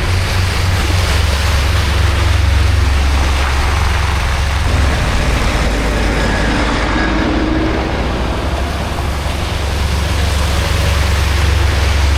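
Heavy road vehicles running in traffic: a steady deep engine rumble under a constant wash of road noise, with one engine note rising briefly about seven seconds in.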